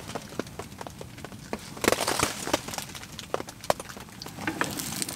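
Scattered sharp crackles and pops, with a short hiss about two seconds in, from frozen meatballs starting to fry in a little oil in a pan on a wood-burning tent stove, together with the crackle of the stove's wood fire.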